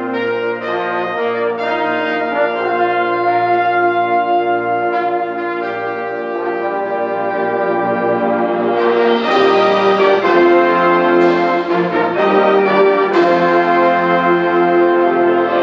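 Concert band playing a slow, sustained passage led by brass (trombones, horns and trumpets) in full held chords. About halfway through it grows louder, with several sharp accented hits.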